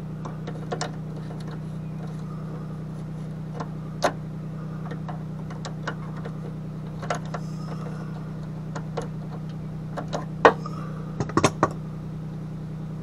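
Scattered sharp metal clicks and taps of needle-nose pliers working parts inside a Hobart MIG welder's wire-feed compartment, the loudest about ten and a half seconds in and a quick cluster about a second later. A steady low hum runs underneath.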